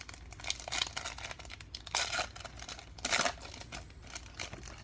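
Foil wrapper of a Panini Prizm basketball card pack being torn open and crinkled by hand. Irregular crackling, with two louder tears about two seconds and about three seconds in.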